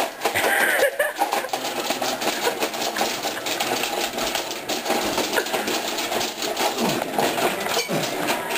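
Rock 'Em Sock 'Em Robots plastic boxing toy in play: a rapid, continuous clatter of the robots' punching arms and the thumb-button controls being worked hard.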